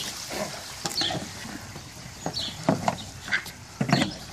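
Irregular knocks and clunks as a long rowing boat and its oars come alongside a wooden jetty and are caught with poles, with a few brief high squeaks between them.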